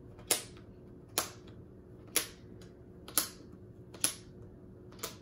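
Wooden counting board's flip tiles being snapped over one at a time: six sharp clicks, about one a second.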